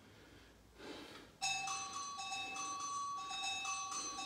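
A tune of bright, xylophone-like ringing notes starts about a second and a half in and keeps going; before it there are only faint sounds.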